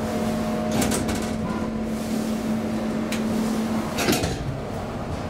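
KONE traction elevator car in motion, with the steady hum of its drive and a few light clicks about a second in. The hum stops about four seconds in with a short clatter of clicks and knocks.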